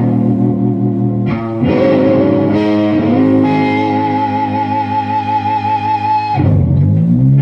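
Rushmore Holy Grail Firebird-style electric guitar played through a 100-watt EL34 tube amp: sustained lead notes with wide vibrato, a long held high note through the middle, then a pitch slide down and back up near the end.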